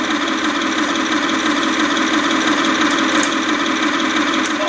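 Radio-controlled scale John Deere excavator running with a steady mechanical drone while its boom and bucket move.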